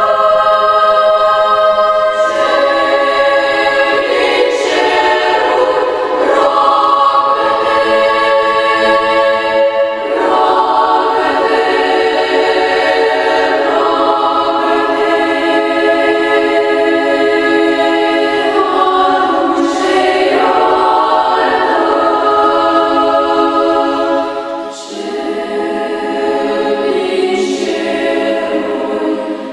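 Girls' choir singing a cappella, several voice parts in harmony, with short breaks between phrases about ten seconds in and again near the end.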